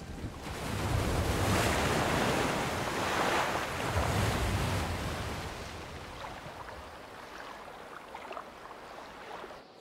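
Ocean surf breaking and washing over rocks: the wash swells up about half a second in, surges again about four seconds in, then slowly dies away.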